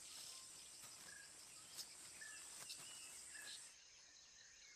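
Very faint tropical forest ambience: a steady high insect hiss with a few short, faint bird chirps. The high hiss thins out a little past the middle.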